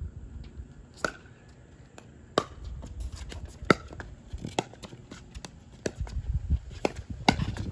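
Pickleball paddles striking a plastic pickleball during a doubles rally: a string of sharp pops, roughly one a second, some louder than others.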